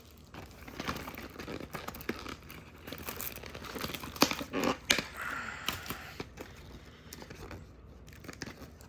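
Plastic wrapping on a VHS tape case crinkling and tearing as it is pulled off by hand, in irregular crackles with a louder stretch about four to five seconds in.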